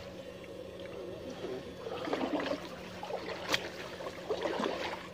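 Shallow ditch water sloshing and trickling as electrofishing poles are pushed through it and someone wades, over a faint steady hum. A single sharp click comes about three and a half seconds in.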